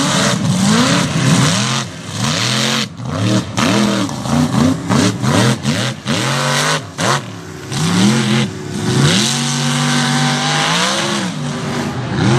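Mega truck engine revving hard again and again, its pitch climbing and falling about once or twice a second as the throttle is worked, with a longer held rev about two-thirds of the way through.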